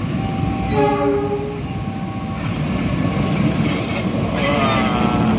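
Diesel locomotive horn sounds once near the start, about a second long. Then a passenger train approaches the level crossing, and its engine and rail rumble grow steadily louder as it nears.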